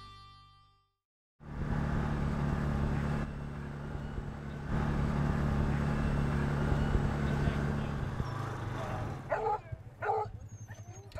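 Background music fading out, then the steady running of utility vehicles' engines as they drive across a field. A couple of dog barks near the end.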